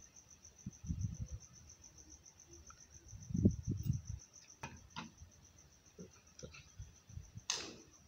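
Light metallic clicks and a few dull knocks from hands fitting small steel parts and ball bearings into a bicycle freewheel. A cricket chirps steadily throughout.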